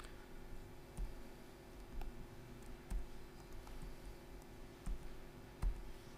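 Laptop keyboard keys clicking: a handful of separate, irregular keystrokes, some with a dull thud, over a steady low hum.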